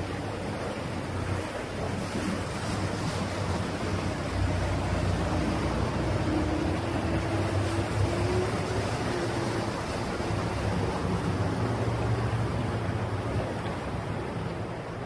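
Motorboat engine droning low as the boat passes along a narrow canal, with the rushing wash of its wake. The sound swells about four seconds in and eases off near the end.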